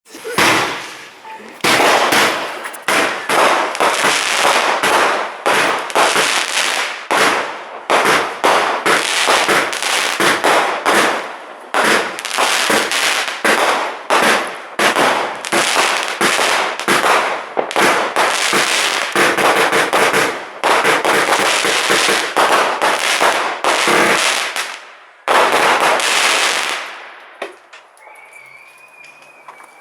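Rascal firework cake (Diamond's Bad Boy range) firing a rapid barrage of shots, the bangs coming several a second and overlapping. Near the end it stops, and the last shot dies away.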